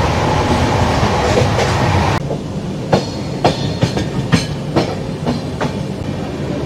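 Dhauli Express passenger train running along the line, heard from an open coach doorway: a steady rush of wheel and wind noise, then after a cut about two seconds in, the wheels clicking over rail joints about twice a second.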